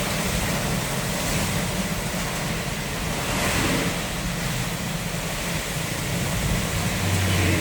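Light truck's engine running steadily under a constant rush of rain and wet-road noise, with a brief deeper hum near the end.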